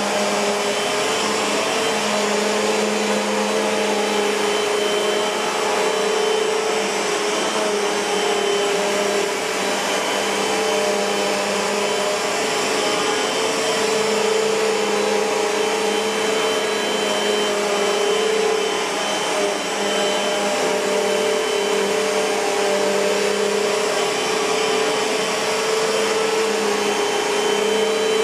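2019 Bissell PowerForce Compact (2112) bagless upright vacuum cleaner running steadily, a constant motor hum and rush of air whose tone swells and fades slightly.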